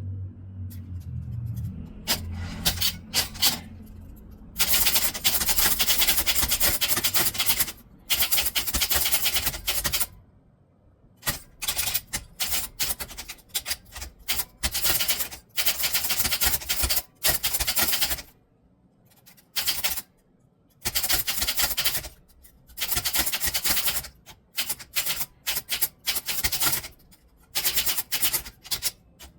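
Typewriter keys struck in fast runs lasting several seconds, broken by short pauses.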